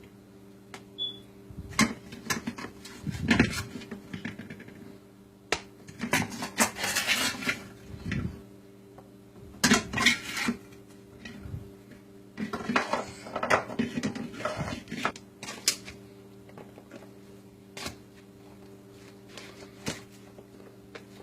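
Kitchen utensils scraping and clinking against cookware in irregular spells as cooked meat is mixed into a salad, over a steady low hum.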